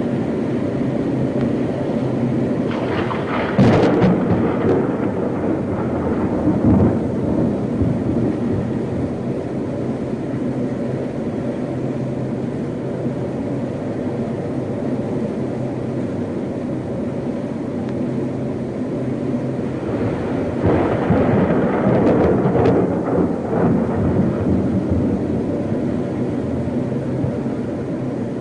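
Wind roaring and buffeting the microphone as a dust devil whirls past, with stronger gusts about three seconds in and again around twenty seconds in, over a steady low hum.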